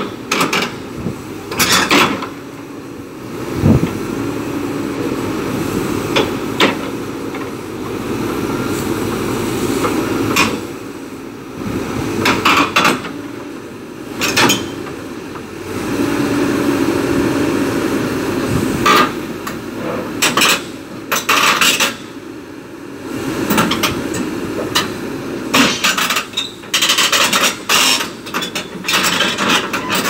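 Caterpillar tracked excavator backing down the steel ramps of a lowboy trailer: its diesel engine runs steadily while the steel tracks clank and knock against the ramps and trailer deck, again and again at irregular intervals.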